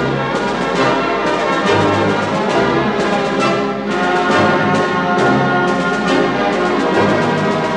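Orchestral background music led by brass, with a steady pulse of notes.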